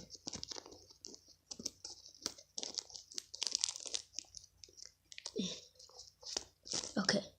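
Thin plastic from a zip-top bag crinkling and crackling in irregular short bursts as it is handled, with a few louder clusters near the end.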